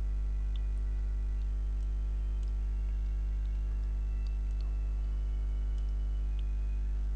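Steady electrical hum with a stack of even overtones, with a few faint, scattered ticks over it.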